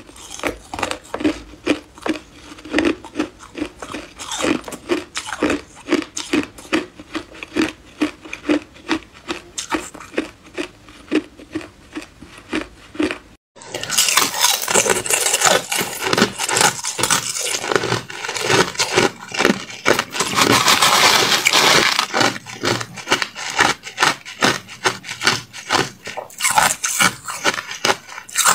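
Ice being bitten and chewed up close. First a slab of clear ice is bitten and crunched in a steady rhythm. Then, after a sudden cut about halfway through, spoonfuls of crushed ice are crunched and chewed more loudly and densely, with a brighter, crackling sound.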